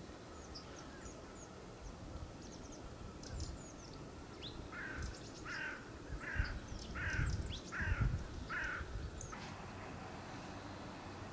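A crow cawing six times in an even series, roughly one and a half caws a second, over faint high chirps of small birds. Low gusty rumbles of wind on the microphone come through under the caws.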